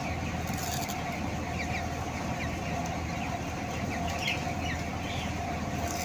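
A flock of young broiler chickens peeping: scattered short, high chirps over a steady hum.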